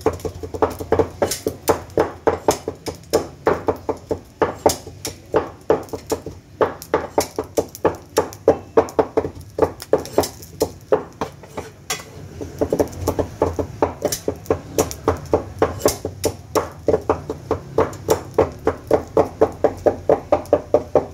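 Two metal spatula blades chopping kokoreç on a steel griddle: fast, rhythmic metallic clacking, about four strikes a second, with a couple of short pauses.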